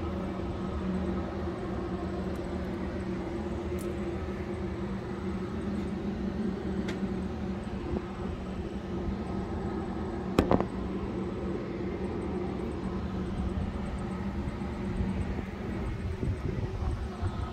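Steady low mechanical hum with a constant drone, and a single sharp knock about ten seconds in.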